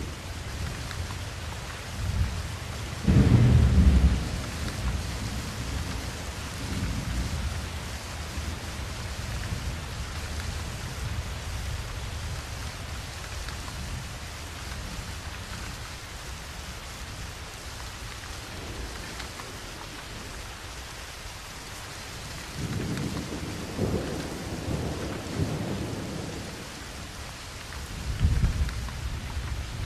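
Steady rain with thunder rumbling over it: a loud clap about three seconds in, a longer roll from about twenty-two to twenty-six seconds, and another clap near the end.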